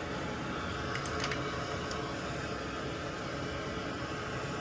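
Steady fan-like whirring hum, with two or three faint light clicks about a second in.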